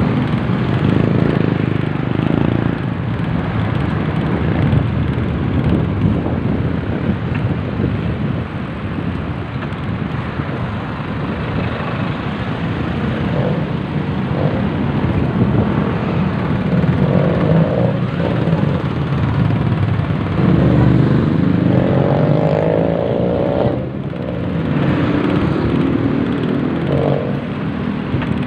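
Street traffic with motorcycle and car engines close by, heard through a phone microphone on a moving bicycle over a steady rumbling hiss that swells for a few seconds about three-quarters of the way in.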